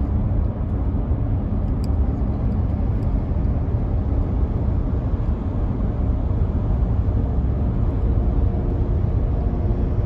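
Steady low road noise inside a car cruising on a highway.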